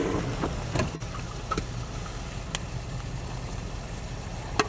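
Dodge Ram pickup's engine running, heard from inside the cab as a steady low rumble, with a few sharp clicks scattered through it.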